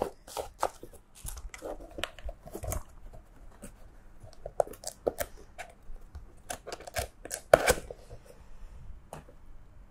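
Handling of unboxed keyboard accessories and packaging: scattered rustles and light clicks, with one sharper click about three-quarters of the way through.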